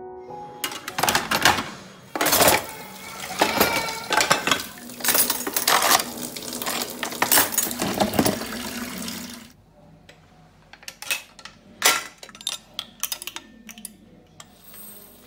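Washed dishes, plastic containers and cutlery clattering and clinking as they are set into a plastic dish rack, busy for about the first nine seconds. After that come sparser, quieter clinks as utensils are hung on metal hooks.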